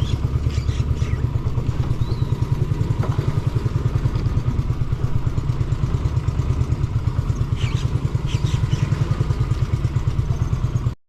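Small engine running steadily with a rapid, even low putter, then cutting off abruptly just before the end.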